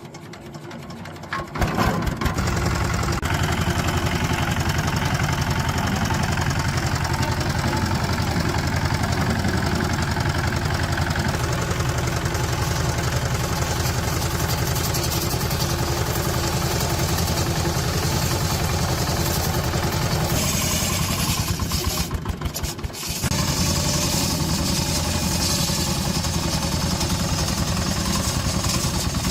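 ZS1115 single-cylinder diesel engine catching about two seconds in, then running steadily with a rapid, even firing knock. Near the 22-second mark it briefly drops away before picking up again.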